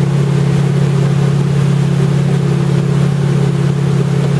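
Tow boat's engine running at a steady speed, a constant low hum over the rush of water from the boat's wake.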